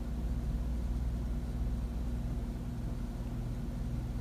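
KitchenAid stand mixer's motor running with a steady low hum, its paddle beater mixing bread dough in the steel bowl.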